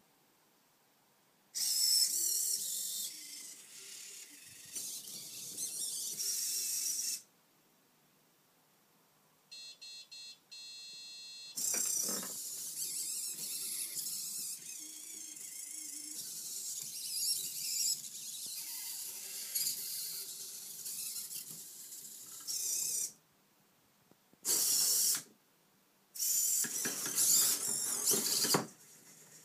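Servo motors of a Futaba RBT-1 humanoid robot whirring in bursts of several seconds as its limbs move through a demo routine, stopping dead between moves. In one pause there is a brief high steady whine.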